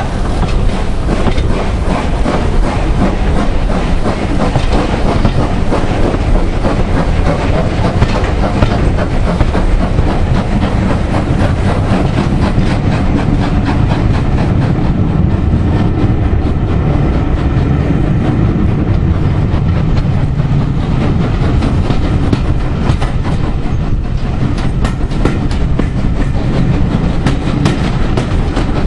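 Passenger carriage of a steam-hauled train running along the line, its wheels rumbling and clicking steadily over the rail joints, heard from an open carriage window.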